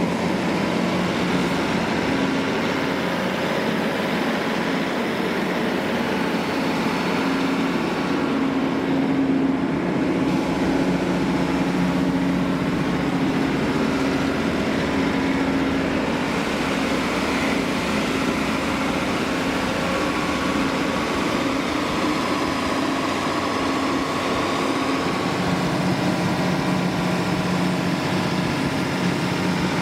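The Volvo TAD1241 GE inline six-cylinder diesel engine of a 350 kW MQ Power standby generator runs steadily at an even speed inside its sound-attenuated enclosure.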